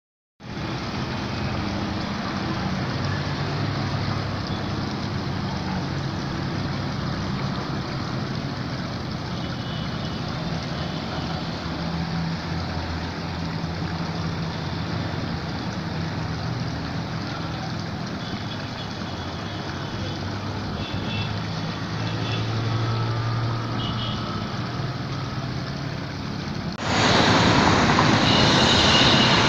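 Steady low hum of running engines, like a crane or heavy vehicle idling, under a constant outdoor noise. About 27 seconds in it becomes a louder, hissier rush.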